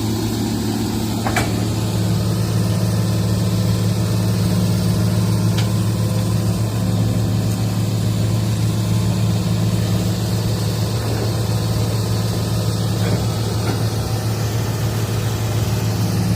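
Excavator's diesel engine running steadily, a low even drone, with a couple of faint clicks over it.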